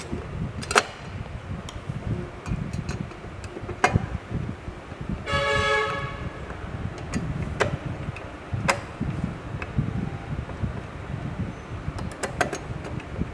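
Scattered clicks and taps of a hand screwdriver and small bolts as a screen board is screwed back onto a 3D printer's metal front panel, over a low rumble of handling noise. About five seconds in there is a short pitched tone, under a second long.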